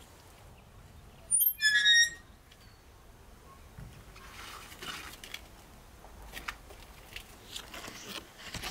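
A brief, loud, high-pitched squeak about a second in, made of a few quick pulses. It is followed by scattered light clicks and taps.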